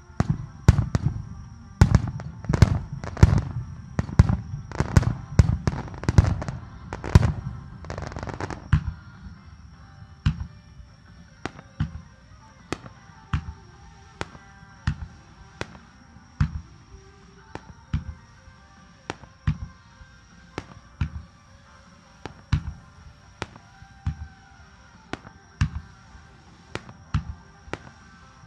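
Aerial firework shells bursting in a dense volley of loud bangs for about the first nine seconds, then lighter bangs at an even pace, roughly one every three-quarters of a second. Music plays faintly underneath.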